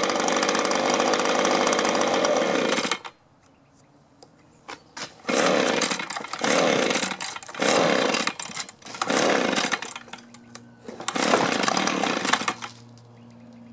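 Echo two-stroke leaf blower engine running steadily, then cutting out suddenly about three seconds in. It is then pull-started again several times, catching for about a second each time without staying running: the blower is hard to start and quits, which the owner later suspects is a restricted spark arrestor.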